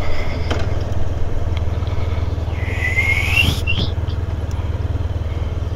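Motorcycle riding along with its engine running steadily under a low drone. About three seconds in comes one brief high tone that rises in pitch.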